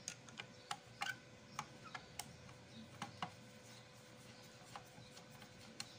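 Screwdriver tightening a long screw into the top cover of a Singer 974 sewing machine: faint, irregular clicks and ticks as the blade turns in the screw head.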